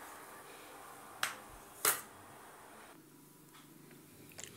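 Two sharp clicks about two-thirds of a second apart over faint room tone, with a smaller click near the end.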